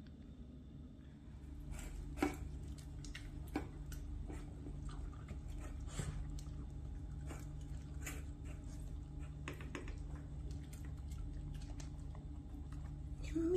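Two small dogs eating wet food from stainless steel bowls: irregular clicks and ticks of food, teeth and tongues against the metal, with chewing and licking.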